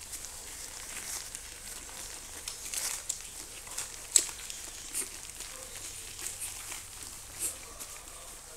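Quilted bedding rustling and crinkling as puppies scrabble and wrestle on it, with scattered sharp crackles, the loudest about four seconds in.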